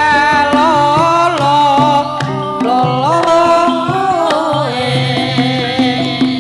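Javanese song with a sindhen (female singer) holding a wavering, ornamented vocal line that swoops up and back down midway, over a steady pulse of drum and low bass notes.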